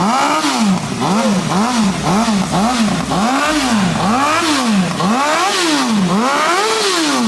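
Carbureted Honda Hornet 600's inline-four engine on its stock exhaust, revved repeatedly in place: about a dozen blips, quick at first and longer and spaced further apart toward the end.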